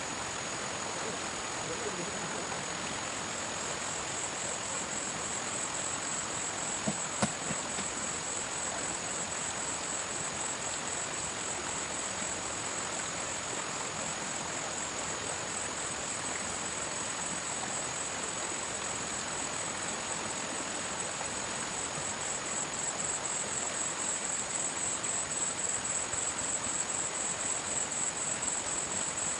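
Insects chirring in a steady, high, fast-pulsing drone over an even background hiss, growing a little louder toward the end; a couple of soft knocks about seven seconds in.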